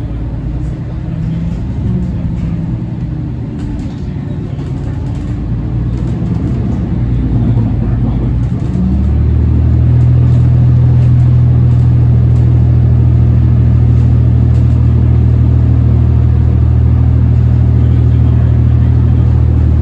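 Diesel-electric hybrid drivetrain of a New Flyer XDE60 articulated bus (Cummins ISL9 engine, Allison H50EP hybrid system) heard from inside the bus while it runs. About nine seconds in, a louder steady low drone sets in and holds at an even pitch.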